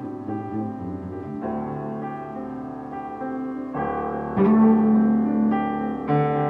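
Slow improvised duo of piano and electric bass: sustained chords that change every second or two over low bass notes. It grows louder about four seconds in.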